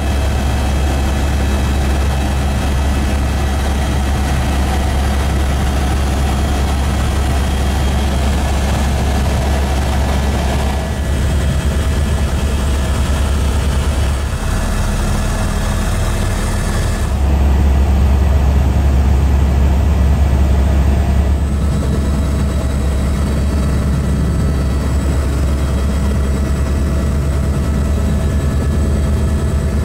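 Helicopter cabin noise: the steady, deep drone of the rotor and turbine heard from inside the cabin, with faint steady whines above it. The drone shifts abruptly a few times and is louder for about four seconds just past the middle.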